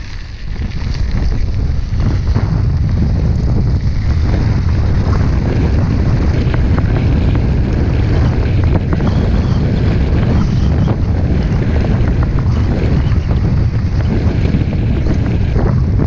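Wind buffeting the action camera's microphone during a fast mountain-bike descent on a dirt road. It grows louder over the first two seconds, then holds steady, with short rattles and knocks from the bike over the rough surface throughout.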